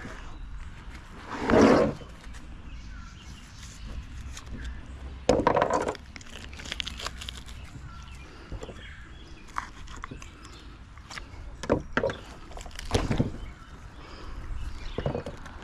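Knife work on a large sheepshead: short scraping and cutting noises and light knocks against a plastic cutting board, several coming as brief loud rasping bursts.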